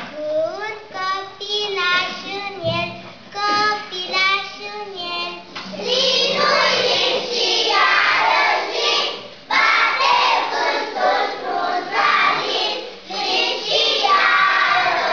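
Young children singing into a microphone; about six seconds in, the singing grows fuller and louder.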